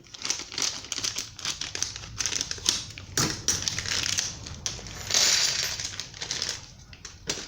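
A small plastic bag of screws crinkling as it is handled and cut open with scissors: a run of quick clicks and rustles, with a louder stretch of crinkling about five seconds in.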